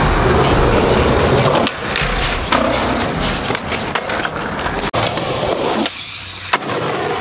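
Skateboard wheels rolling over concrete, with several sharp clacks of the board hitting the ground; the sound changes abruptly a few times.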